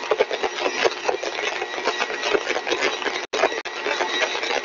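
Single-stage axial compressor test rig running at full design speed: a steady mechanical noise with crackling and a faint steady whine. The sound cuts out briefly twice a little past three seconds in.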